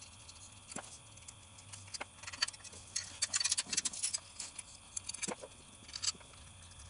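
Socket ratchet clicking in short runs, with light metallic clinks, as spark plugs are unscrewed from a small two-cylinder engine.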